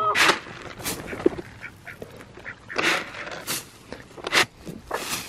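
Chickens squawking in several short, harsh calls spread through a few seconds.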